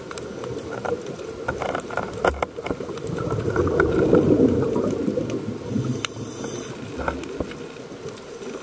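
Underwater sound of a scuba diver breathing through a regulator: a swell of exhaled bubbles in the middle and a short inhalation hiss about six seconds in, over scattered crackling clicks.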